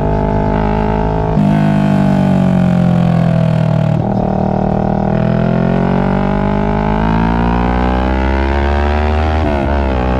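Kawasaki Ninja 650's parallel-twin engine through a Two Brothers exhaust on the move. Its pitch falls as the bike slows over the first few seconds, then rises steadily as it accelerates, with a brief dip in pitch near the end.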